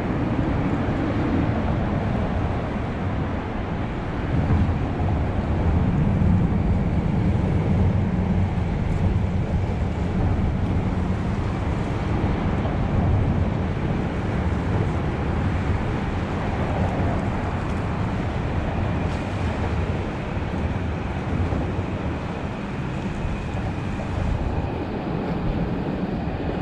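Wind blowing on the microphone: a steady low rumble with a rushing haze, over the sound of open sea water.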